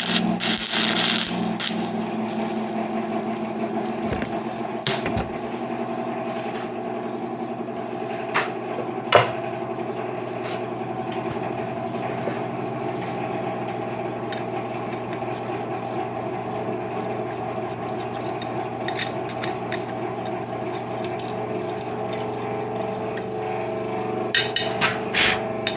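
Sharp metal clicks and knocks from a wrench working a nut welded onto a twisted-off bolt, with a quick clatter of metal near the end, all over a steady machine hum. The bolt does not break loose.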